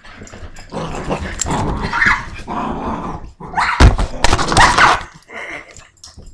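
Cocker spaniel growling in rough play as it dashes around, with a few yips or barks, and a loud thump just before four seconds in.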